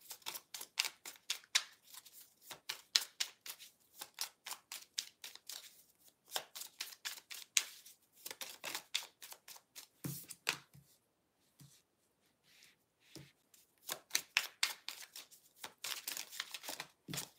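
A deck of cards being shuffled by hand: quick runs of crisp card slaps and flicks, thinning out for a few seconds past the middle before the shuffling picks up again.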